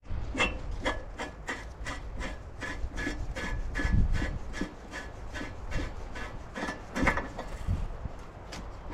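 A hand tool rasping in quick, even back-and-forth strokes, about two to three a second, over a low rumble, with a heavier stroke about four seconds in and another about seven seconds in.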